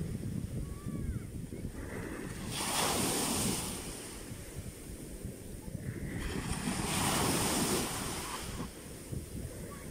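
Black Sea waves breaking at the water's edge and washing up the shore in foam, swelling twice into a rush of surf about four seconds apart. Wind rumbles on the microphone underneath.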